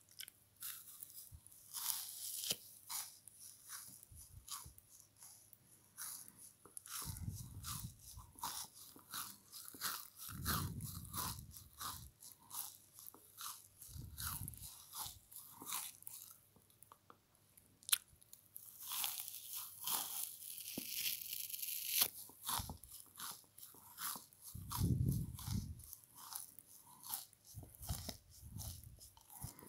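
Close-up crunching of frozen french fries being bitten and chewed: dense sharp crackles throughout, with several heavier, duller chewing bursts.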